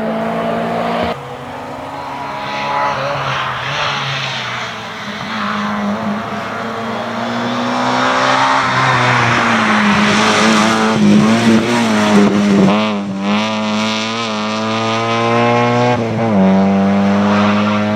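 Rally car engine at high revs, its pitch climbing and dropping through acceleration and lifts, with a wavering stretch through the middle. The sound changes abruptly about a second in and again near the end.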